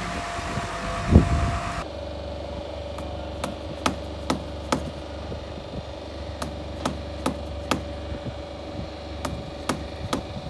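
Sharp metallic tapping, in runs of about four strikes 0.4 s apart with pauses between, from tool work at the rudder fitting under a wooden boat's hull, over a steady engine hum. One loud thump about a second in, before the tapping starts.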